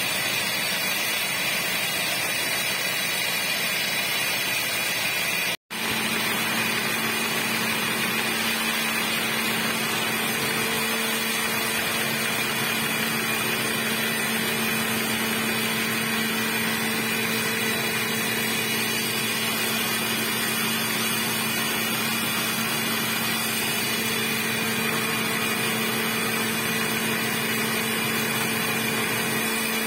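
Sandvik tunnelling drill jumbo running, its hydraulic rock drill boring holes for SN rockbolts: a loud, dense, even machine noise. The sound drops out for a moment about five and a half seconds in, and after that a steady hum runs under it.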